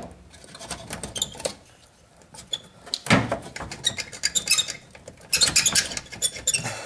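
Hands tugging and wiggling a stiff plastic H4 headlight connector off the back of a headlight: a run of small plastic clicks, scrapes and rattles, busiest about three seconds in and again near the end. The connector is old and needs extra effort to come free.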